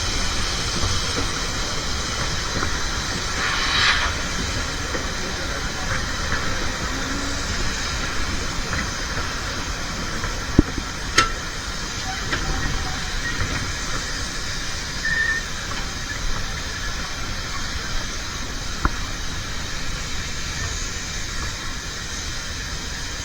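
Narrow-gauge steam train running, a steady hiss over a low rumble, with a short burst of hiss about four seconds in and a few sharp clicks around the middle.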